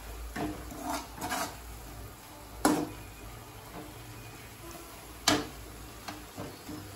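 Steel ladle stirring moringa leaves in an aluminium kadai, scraping through the greens and knocking against the pan. Two sharp knocks stand out, a few seconds apart, among lighter clinks.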